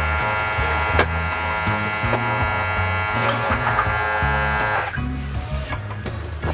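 Background music with a stepped bass line. Over it, a steady electric buzz runs for the first five seconds or so, then cuts off.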